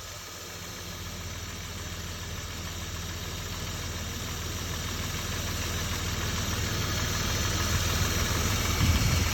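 BMW M50 inline-six, stroked to 2.6 litres, idling steadily with a knock whose cause the owner does not know. It grows gradually louder, with a few louder irregular sounds near the end.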